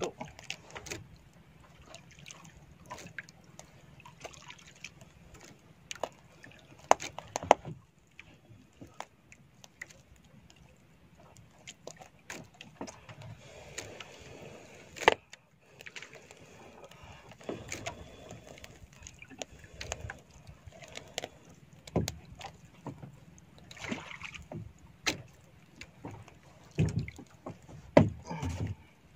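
Irregular clicks and knocks from a squid being handled and cut on a wooden board in a small boat, with a few louder knocks and soft water sloshing in between.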